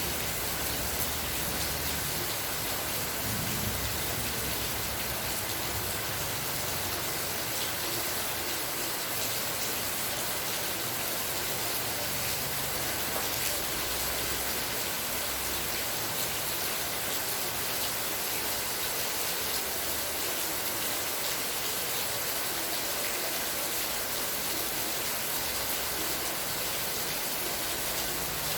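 Rain falling steadily: an even hiss of many drops.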